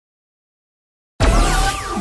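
Dead silence for just over a second. Then the Moj app's outro jingle starts with a deep hit and electronic tones that slide in pitch.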